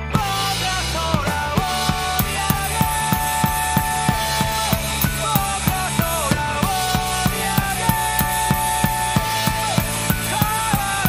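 Rock drum kit played along with a band recording that has a singer; the full band and drums come in together at the start, then a steady driving beat of about three hits a second with cymbals.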